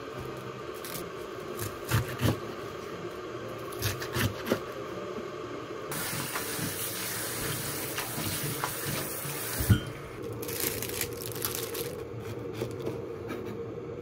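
Kitchen tap running into a steel sink onto napa cabbage leaves in a colander as they are rinsed by hand, the rush of water coming in about six seconds in. Before that come a few knocks and rustles of the cabbage being handled.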